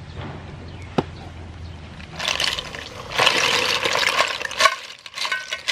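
Steamed sea snail shells poured from an aluminium pot into a bamboo basket, clattering and rattling against each other for a few seconds, with a sharp knock about a second in and a few separate clinks of shells near the end.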